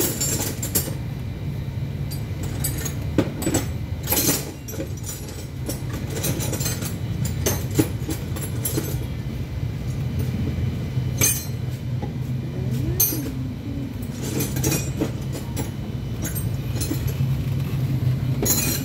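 Metal tools and parts clinking and knocking now and then during engine assembly work, over a steady low mechanical hum.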